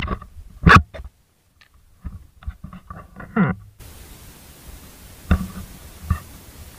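An action camera being handled: two sharp knocks against its microphone in the first second, then muffled rubbing and clicks while it is covered. After that comes steady wind hiss on the microphone, with two light knocks near the end.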